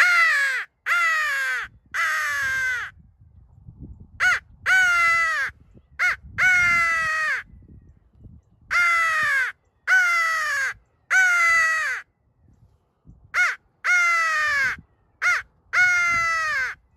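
Mouth-blown crow call sounding about thirteen loud caws, each falling in pitch. They come in a repeated sequence of three long caws followed by two short-then-long pairs.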